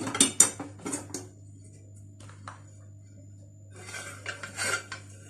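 Hot metal cake mould clattering and knocking against a plate and the counter as the cake is turned out: a flurry of knocks in the first second, then another short cluster about four seconds in.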